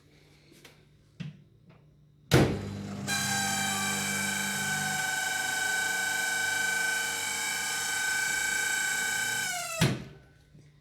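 Microwave oven starting with a click, then running with a loud, steady high-pitched squeal that holds one pitch for several seconds. The squeal slides down in pitch and dies as the oven stops, with a click near the end. This is the abnormal running noise that the oiling repair is meant to cure.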